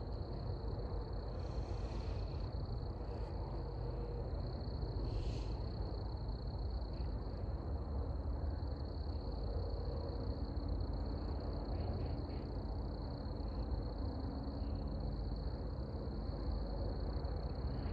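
Night-time outdoor ambience: a steady low rumble under a continuous high-pitched whine, with two brief faint calls about two and five seconds in.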